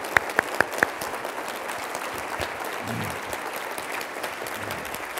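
Audience applauding steadily, with about five loud, close hand claps in the first second that then stop.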